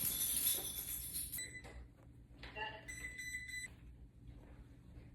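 A second or so of hiss, then two electronic beeps from an appliance: a short one, then a longer one about a second and a half later.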